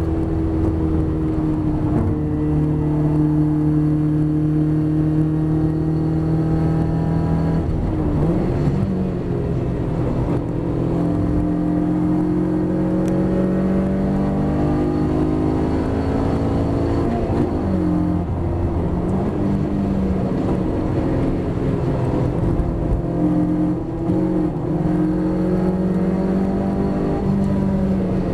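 Ginetta race car engine heard from inside the cockpit, running hard at high revs. It holds a steady note for several seconds, falls about eight seconds in, then climbs, drops sharply near the middle, and climbs again under acceleration.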